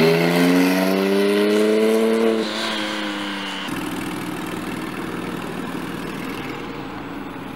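Porsche 911 Turbo's flat-six pulling away, its pitch climbing steadily through the first two and a half seconds. After about three and a half seconds it drops back to a lower, coarser, steady engine sound as the car rolls along.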